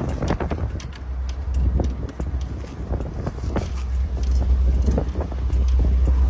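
Outdoor street noise: a steady low rumble with scattered clicks and knocks, growing louder toward the end.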